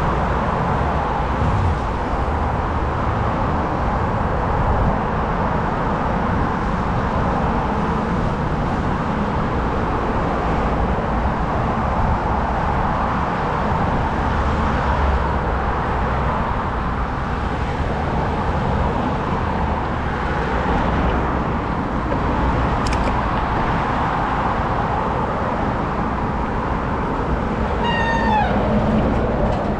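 Steady rush of street and traffic noise heard while riding a bicycle through city traffic. A short squeal falls in pitch near the end.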